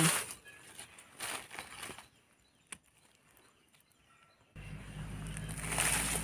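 Light rustling and handling noise among dry leaf litter. About four and a half seconds in, a low steady hum cuts in abruptly along with more rustling.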